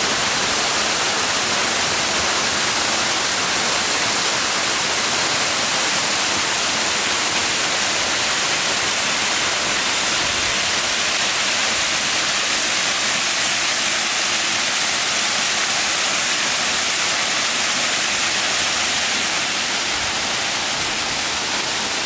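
Small waterfall pouring down a rock face and splashing onto the stone below: a steady, even rush of falling water, heard close. It gets slightly softer in the last few seconds.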